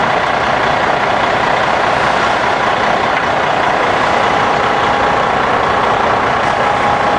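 A heavy engine idling steadily, a constant rumble with a faint steady whine over it.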